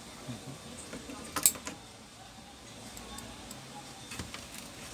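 Handling noise from working inside an opened induction cooker: a few sharp clicks and a clatter, the loudest about a second and a half in, with a lighter click near the end.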